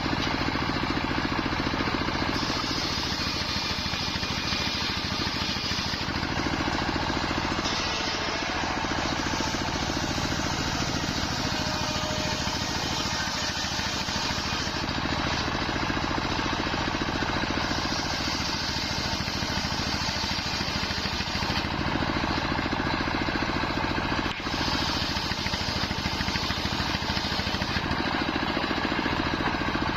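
A wide circular sawmill blade running and ripping nyampoh wood over a steady machine drone. A higher hiss comes in and drops away every few seconds as the cuts go through.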